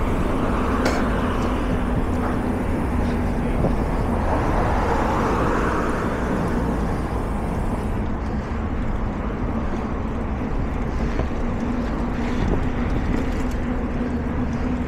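Steady outdoor rumble with a faint steady hum, with no single event standing out.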